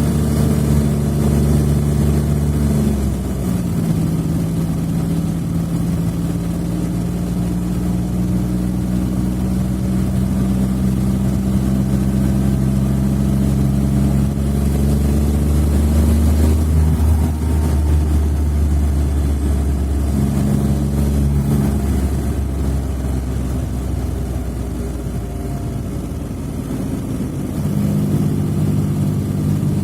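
Smart fortwo 451's three-cylinder engine running steadily, its pitch shifting in steps a few times: once about three seconds in, briefly around twenty seconds, and again near the end.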